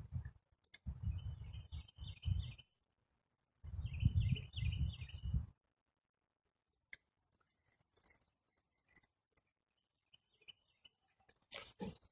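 Wind buffeting the microphone in two gusts, a low rumble that cuts in and out, while a small songbird repeats a quick chirping phrase; after the gusts it goes nearly quiet, with faint chirps and a few light ticks.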